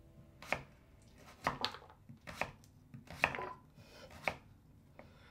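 Kitchen knife slicing raw sweet potato, each stroke ending in a knock on the cutting board: about half a dozen slow, separate cuts roughly a second apart.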